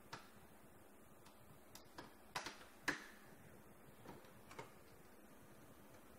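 Scattered clicks and light knocks, about eight, as plastic and metal parts are worked loose at the end of a copier fuser unit. The sharpest two come a little over two and nearly three seconds in.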